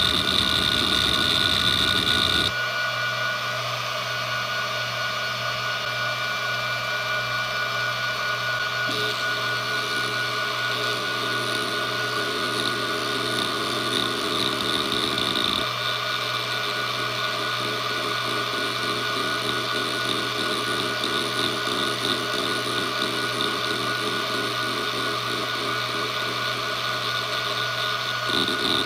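Western Digital Expert 313600 hard drive, a 7200 rpm three-platter drive, spinning with a steady whine while its heads seek under test software, giving a rough chatter. The chatter changes pattern a few times as the test moves the heads in different sweeps.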